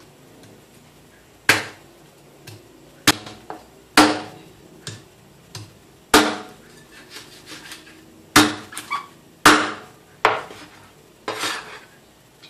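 Knife chopping through raw silver catfish on a plastic cutting board: about a dozen sharp chops at an uneven pace, each a hard knock of the blade against the board.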